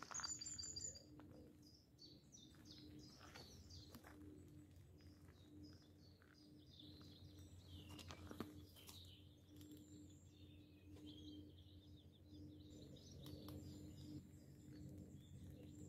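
Faint woodland birdsong: several small birds chirping and trilling on and off.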